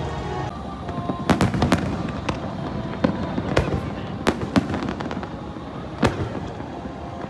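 Fireworks bursting overhead: about eight sharp bangs at uneven intervals, three in quick succession a little over a second in, with music playing underneath.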